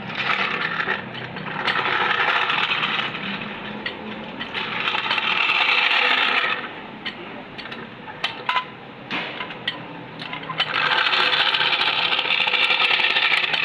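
A power tool runs in several bursts of about two seconds each, with short metallic clicks and clinks in the pauses between.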